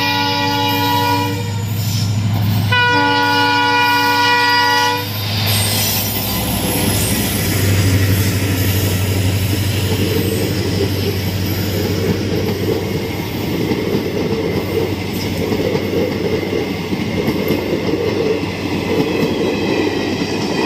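Diesel locomotive horn sounding two long blasts, the first ending about a second in and the second starting soon after and lasting about two seconds. Then a passenger train rolls past with the steady rumble and clatter of its coaches' wheels on the rails.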